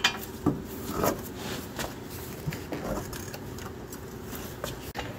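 A Jeep Grand Cherokee's rear coil spring being worked into its seat by hand, giving scattered light metal knocks and rubbing, with a faint steady hum underneath.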